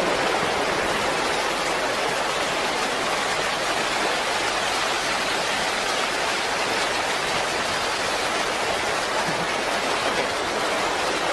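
Muddy flash-flood water rushing steadily across a road: one even, unbroken wash of flowing-water noise.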